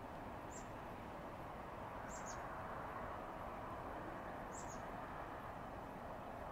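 A small bird gives brief, high chirps, one at a time or in quick pairs, about every two seconds over a steady background hum.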